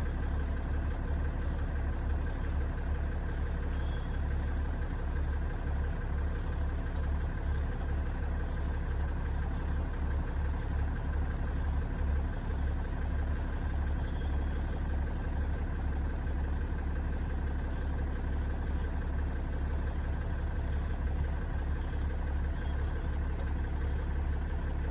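BMW M57 3.0-litre straight-six turbodiesel idling steadily with a fast, even low rumble; the engine has an unexplained knock. A faint brief high tone sounds about six seconds in.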